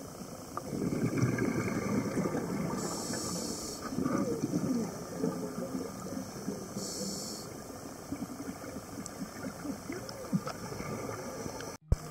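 Scuba breathing heard through an underwater camera: a regulator hisses twice on inhalation, about four seconds apart, and exhaled bubbles gurgle and rumble in between. The sound cuts off suddenly near the end.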